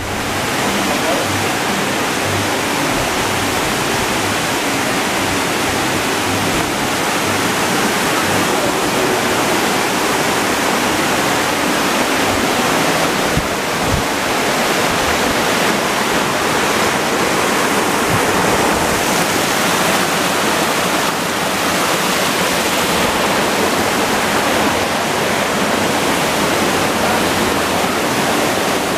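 Steady rush of a waterfall.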